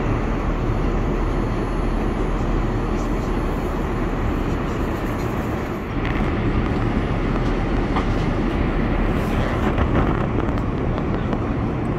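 Steady rushing drone of an airliner cabin, engine and airflow noise heard from inside the plane, dipping briefly about halfway through, with a few faint clicks.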